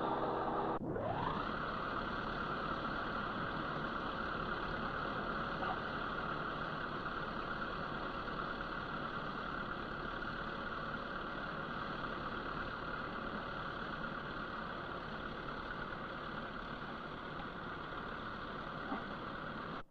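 Heavy construction machinery's engine running steadily. About a second in, a humming engine note cuts abruptly to a rougher, even engine noise that holds steady.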